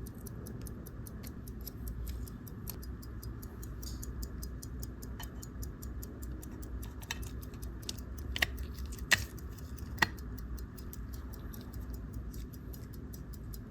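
A. Lange & Söhne Glashütte-calibre pocket watch movement ticking steadily at about five ticks a second, with a few sharper clicks of small tools on the watch near the middle.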